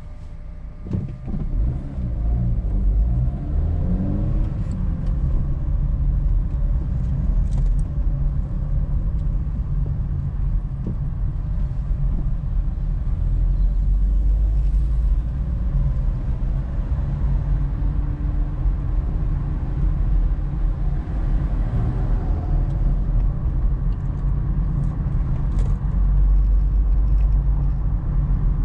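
Car engine and tyre rumble heard from inside the cabin. It grows louder over the first few seconds as the car pulls away from a stop, then runs steadily at road speed.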